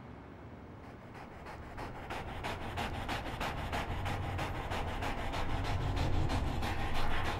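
Racing greyhounds galloping and panting hard in rhythm, about five beats a second, growing louder as the pack comes on, over a low rumble that builds.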